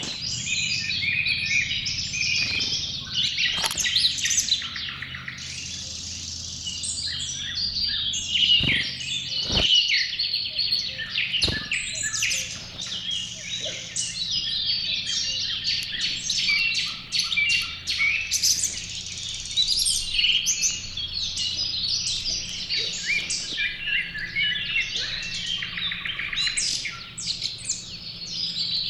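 Many small songbirds chirping and singing at once in a busy, continuous chorus, with a few sharp knocks standing out between about four and twelve seconds in.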